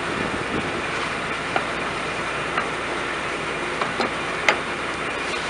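A few sharp metal clinks and knocks, the loudest about four and a half seconds in, as a hydraulic combine reverser is lifted onto the drive pulley of a New Holland CR combine's stone-protection drum and its ratchet head is seated, over a steady background rush of noise.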